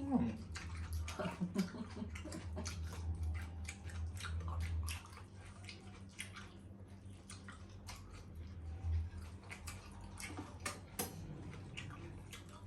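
Close-up mouth sounds of masala spare ribs being eaten: wet chewing and lip-smacking, a steady run of small clicks and squelches. A low hum runs underneath for the first five seconds or so.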